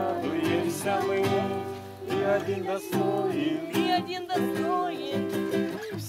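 Acoustic guitar accompanying a Russian Christian worship song, with voices singing along.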